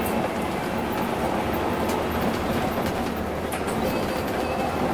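Steady drone inside the cabin of a Scania coach running at highway speed: engine and tyre noise with no change in pace.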